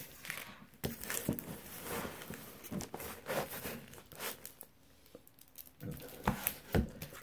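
Comics in plastic sleeves crinkling and rustling as they are handled and shuffled, with a couple of sharper taps near the end.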